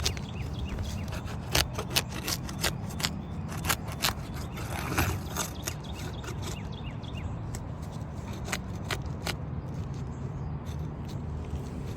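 Hand tools scraping and prying at sealed roof shingles, with a string of sharp clicks and taps and a longer scrape about five seconds in, as a shingle bonded hard to the one below is worked loose.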